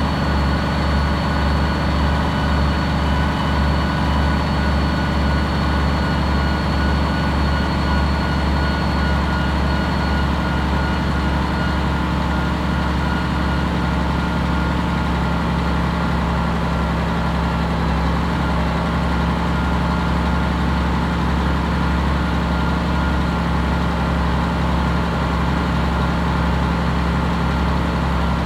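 Bus engine idling steadily at a constant pitch, with a faint high whine that fades out in the first half.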